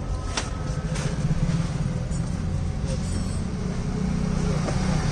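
Car engine running steadily with a low rumble, with a couple of sharp clicks right at the start.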